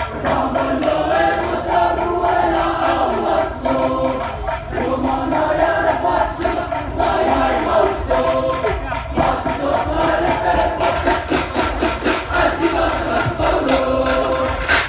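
Male group singing and chanting in chorus, the voices held in long, sliding lines. Near the end comes a run of quick, sharp claps, about four or five a second.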